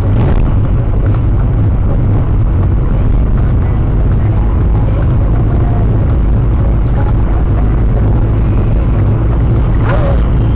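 Steady low road and engine rumble inside a car driving at highway speed, about 75 to 85 km/h, picked up by a dashcam's microphone.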